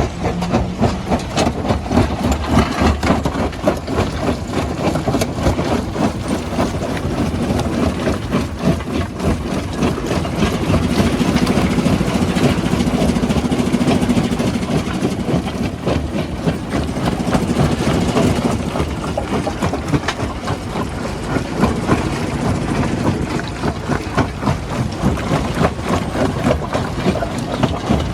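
Heavy diesel machinery running at a rock-crushing site, with a continuous dense clatter of knocks and rattles; the engine grows louder for several seconds in the middle.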